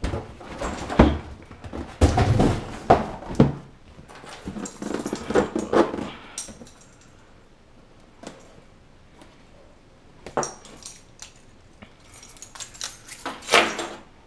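A large LEGO set's cardboard box being opened by hand: bursts of cardboard scraping, rustling and tearing, in two clusters in the first half and two more near the end.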